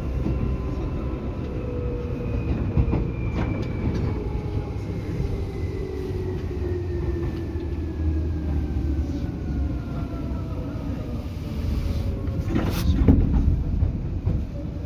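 Onboard running sound of a Seibu 2000 series electric train: steady wheel and floor rumble with occasional clicks over rail joints, and a whine that falls slowly in pitch as the train slows. A louder knock comes near the end.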